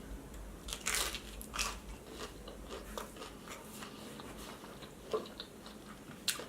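Close-up eating: a person biting into and chewing a breaded vegan chicken piece, with crisp crunches about a second in and again shortly after, then softer chewing.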